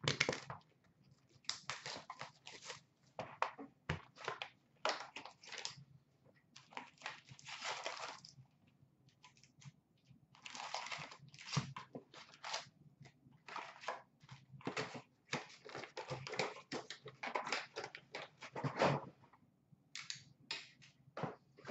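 Cardboard hockey-card hobby box being torn open by hand and its wrapped card packs pulled out: irregular bursts of tearing, crinkling and rustling of cardboard and pack wrappers.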